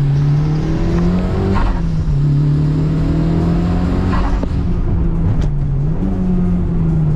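Mitsubishi Lancer Evolution V's turbocharged 4G63 inline-four pulling hard, heard from inside the cabin. The engine note climbs, drops sharply about a second and a half in, dips again about four and a half seconds in, then climbs once more.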